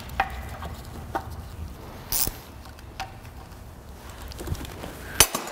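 Hand-work noise at a power steering pump's hose fittings: a few light clicks and taps of tools and parts, a short rustle about two seconds in, and a sharper click near the end, over a low steady hum.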